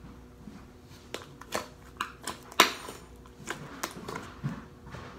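Hands kneading freshly activated fluffy borax-and-glue slime, giving a string of irregular sharp clicks and pops as the slime is squeezed and folded. The loudest pop comes about two and a half seconds in.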